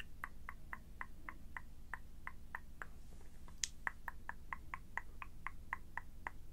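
Light, even tapping, about four taps a second, in two runs of around ten taps each, with one sharper click between the runs.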